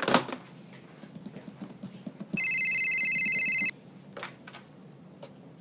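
Multiline office desk phone ringing with one electronic warbling trill, about a second and a half long, midway through. Before it come clicks and knocks as the handset and buttons are handled, and there is a faint click later.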